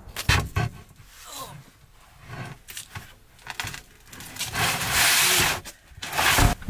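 Knocks and rubbing as a plastic laundry basket of clothes is handled and loaded into the back of a truck, with a long scraping rustle about four and a half seconds in and a shorter one near the end.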